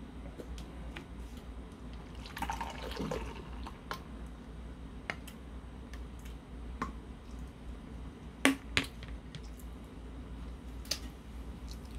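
Beer poured from a can into a glass mug, with scattered light clicks and clinks and two sharp knocks about two-thirds of the way through.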